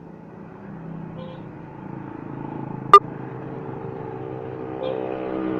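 Multicab's small engine idling steadily while it overheats, with one sharp, loud clack about three seconds in.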